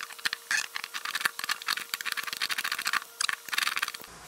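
Hand ratchet clicking in quick runs as it turns, with a short pause about three seconds in, backing out the oil level sensor from the oil pan of a Gen2 LT1 V8.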